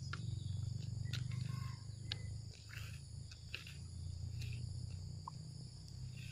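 Insects chirring steadily in the background over a low steady rumble, with scattered small clicks and ticks from handling a fishing rod and reel while sorting out a tangled line.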